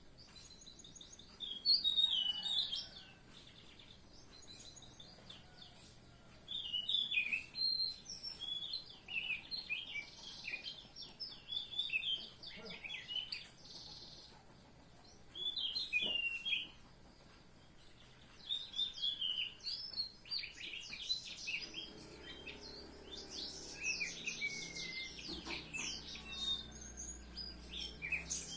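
An anis macan (anis ampenan) thrush singing, with quick varied chirping phrases that come in bursts separated by short pauses.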